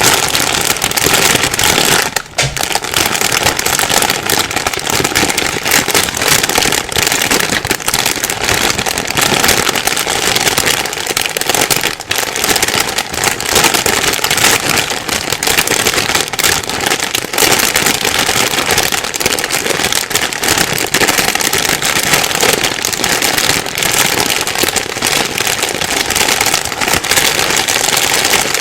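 Plastic bag being crumpled and rustled nonstop, a dense crinkling crackle that dips briefly about two seconds in.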